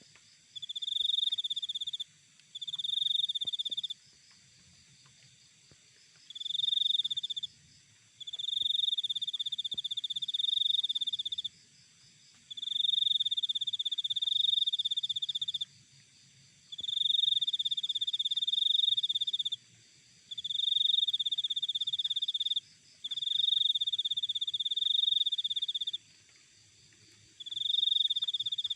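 A cricket trilling: a high, fine buzzing note in bursts of one to three seconds, broken by short pauses, with a longer pause of about two seconds some four seconds in.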